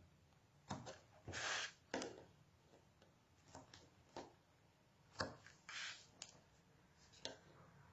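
Double-sided tape being pulled off its roll and torn against a clear acrylic block, two short rasps, with scattered light clicks and taps as the block and card are handled on a cutting mat.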